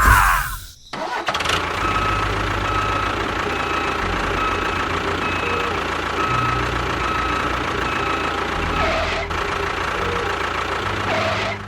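Small engine running steadily with an even low chug and a faint, regular high-pitched tick about twice a second; it cuts out briefly about a second in.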